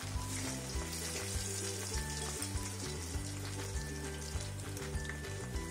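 Raw-jackfruit kababs deep-frying in hot oil, a steady sizzle, with background music of held low notes underneath.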